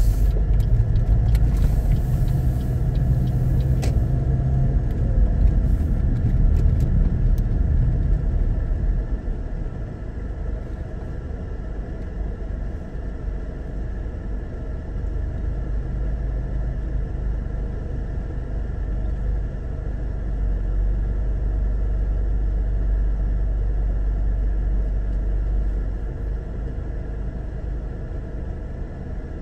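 Car cabin noise: a low rumble while the car moves for the first several seconds, then drops to a quieter, steady engine idle as it waits at a red light.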